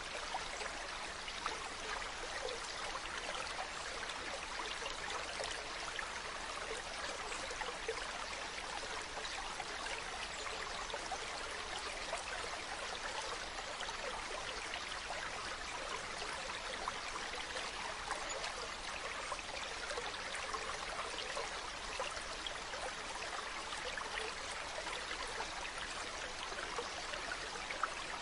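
Mountain stream running over rocks: a steady rushing and babbling of water with many small splashes and trickles.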